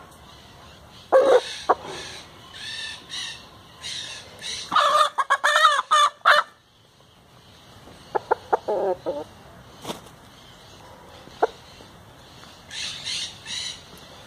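Caged jilguero singing short, high-pitched phrases in bursts. Louder, lower bird calls are mixed in about a second in and again in a dense run around five seconds in.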